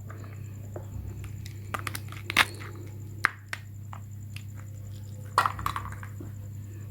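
Scattered light clicks and knocks of small hard objects being handled, a few sharper ones about two and a half, three and five and a half seconds in, over a steady low hum.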